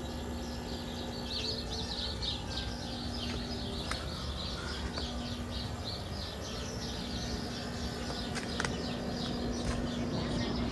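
Window air conditioner running, heard from its outdoor side: a steady compressor hum with the condenser fan's low whoosh. Birds chirp in quick repeated notes over it.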